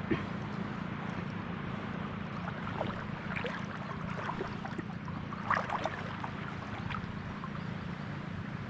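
Shallow seawater lapping and gurgling along a rocky shore, with a few small splashes and drips in the middle.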